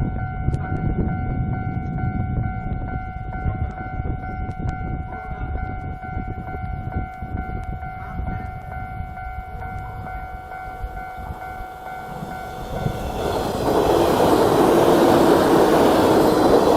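Level-crossing warning bell sounding steadily while a JR 115 series electric multiple unit approaches with a low rumble. The train passes the crossing loudly over the last few seconds.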